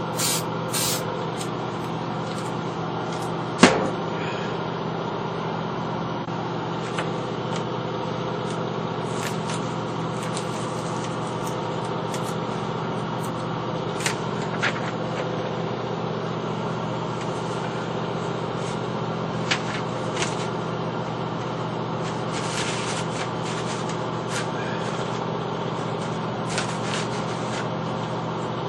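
Steady low mechanical hum, with a sharp knock about three and a half seconds in and a few brief clicks and short hisses later.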